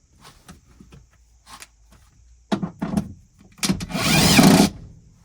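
Bucket seat being rocked on its newly fitted electric seat rails: scattered knocks and rattles, then a loud scraping rub about four seconds in. The movement shows play in the seat mounting.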